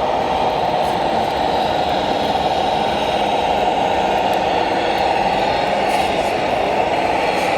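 Electric drive motors and gearboxes of radio-controlled scale trucks running with a steady whine, the pitch wavering a little, with a few faint clicks near the end.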